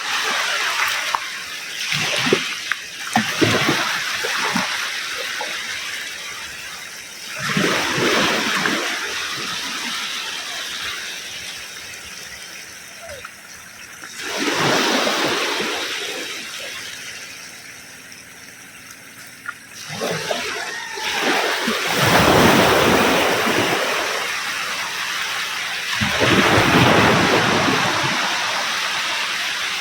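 Ocean waves breaking on a beach: five or six surges of rushing water, each swelling quickly and then draining away, one every five to seven seconds.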